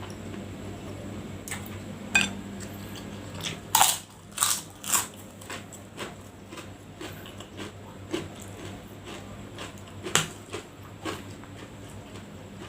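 A person chewing food close to the microphone, with a few loud, sharp crunches scattered through and softer mouth sounds between them.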